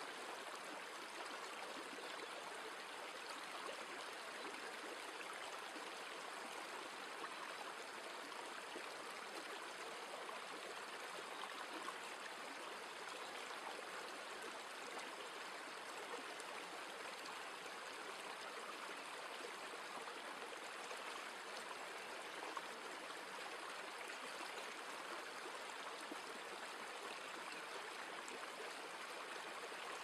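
Steady rush of running water with a light trickle, even and unbroken.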